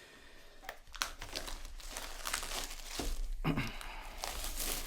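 Packaging being handled by hand, crinkling and rustling with some tearing, getting louder after about a second; a short low bump about three and a half seconds in.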